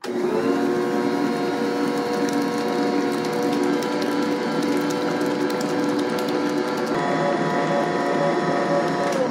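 Electric stand mixer starting up and running steadily with a motor whine, beating butter, shortening and sugar as egg whites go in. Its tone shifts slightly higher about seven seconds in, and it switches off at the very end.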